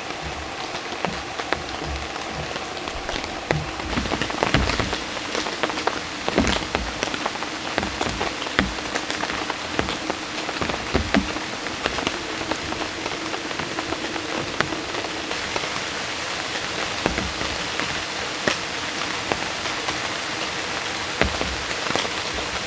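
Steady rain falling on a surface, with many individual heavy drops striking sharply throughout.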